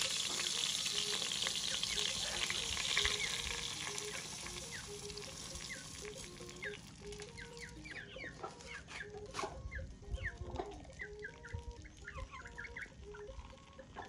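Dry rice grains poured into a metal pot, an even hiss for the first few seconds that fades away. Then a chicken clucking close by, short notes repeated again and again.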